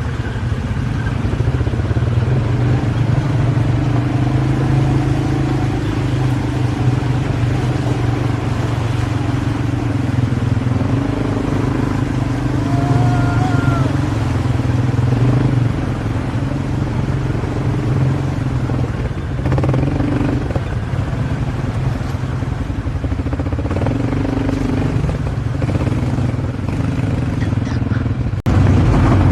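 ATV engine running steadily, its pitch shifting slightly as it rides. It changes abruptly and gets louder near the end.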